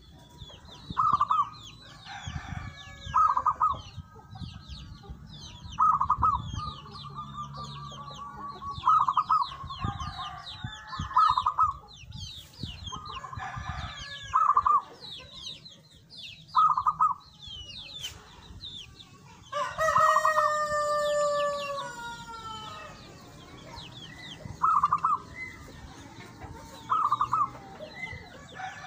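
Zebra dove (perkutut) cooing in short, pulsed phrases every couple of seconds, with a rooster crowing once about twenty seconds in. Small high chirps repeat steadily in the background.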